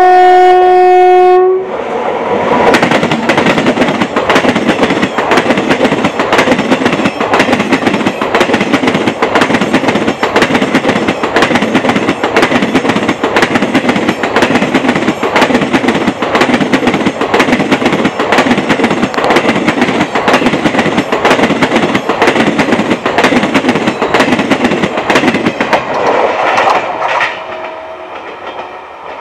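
Train horn sounds one loud blast of about a second and a half. Then an Indian express train passes close by at speed, its wheels beating a steady khatak-khatak clatter over the rail joints that fades near the end as the last coaches draw away.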